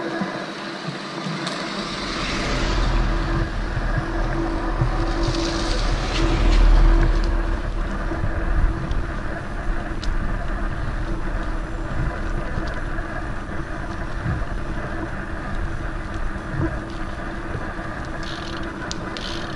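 Wind rushing over the camera's microphone, with road-bike tyres on wet asphalt, during a fast descent. A heavy low rumble sets in about a second and a half in and swells to its loudest a few seconds later.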